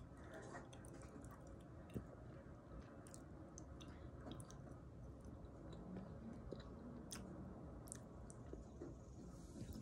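A person chewing a mouthful of soft food, with frequent small, quiet mouth clicks.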